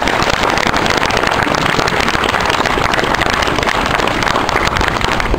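Outdoor crowd applauding: a steady, dense clapping that holds at one level.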